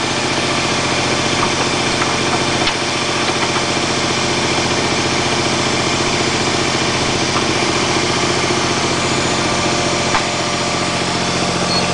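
Kubota BX24 compact tractor's three-cylinder diesel engine idling steadily, with a couple of faint clicks.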